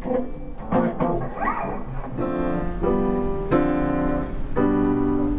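Digital piano played in full chords, each chord held about a second with short breaks between them, starting about two seconds in.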